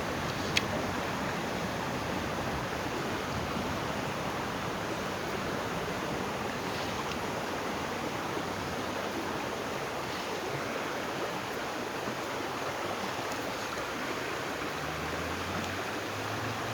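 Steady rush of flowing river water, with one sharp click about half a second in.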